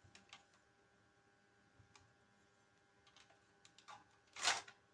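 Faint plastic clicks and taps from handling a drone's remote controller and its clip-on phone holder, with one louder short scrape near the end.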